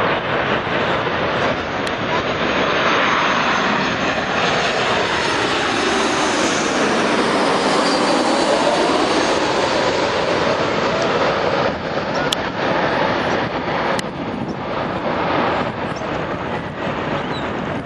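Airliner passing overhead. Its engine noise swells to a peak about halfway through and then fades, with a sweeping, phasing sound as it goes over.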